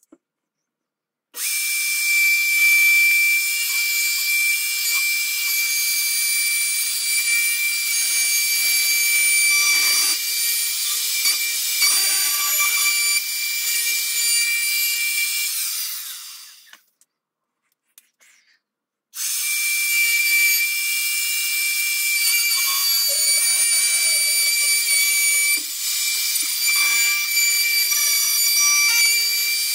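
Makita hand-held router running with a steady high whine as its bit mills a groove along a wooden rifle stock. It starts about a second in, winds down and stops past the halfway point, then starts again a couple of seconds later.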